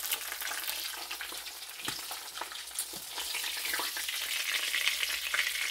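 Milkfish frying in hot oil in a nonstick wok: a steady sizzle full of fine crackles, with a couple of light knocks about two and three seconds in.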